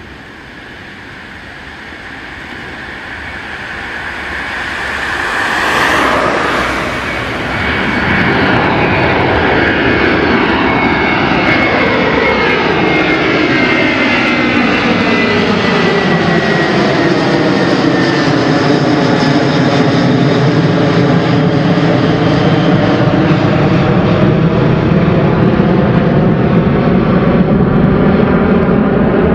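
Airbus A330 jet engines at high power as the airliner takes off. The sound builds over the first six seconds, then stays loud and steady as it climbs away, with a whine that slowly sweeps down and then back up in pitch.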